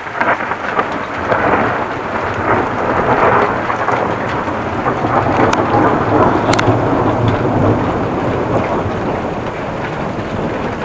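A long rolling rumble of thunder over steady rain, building to its loudest around the middle and easing slightly towards the end.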